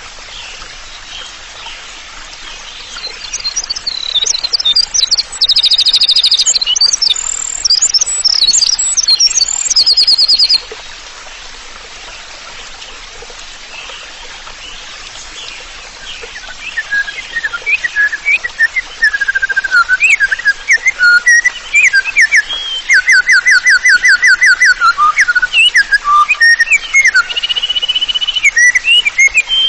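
Songbirds singing: a burst of high-pitched chirps and rapid trills in the first third, then, after a short lull, a lower run of whistled notes and fast trills that carries on.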